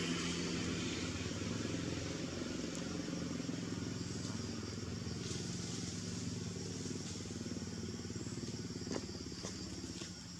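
A vehicle engine running steadily, slowly fading in level, with two light clicks near the end.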